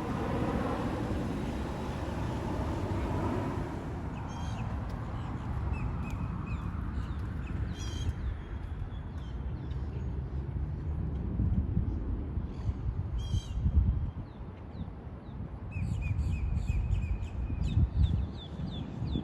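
A jet airliner going past and fading away, its engine tones falling in pitch over the first few seconds. Then birds call repeatedly in short chirps over a steady low rumble.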